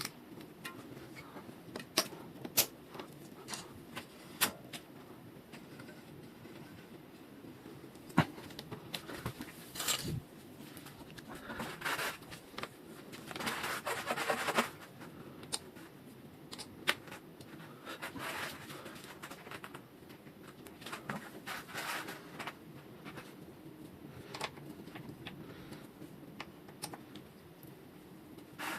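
Hands and tools working on a bicycle's front end: scattered sharp clicks and knocks of metal parts and tools, with a few short stretches of rubbing or scraping.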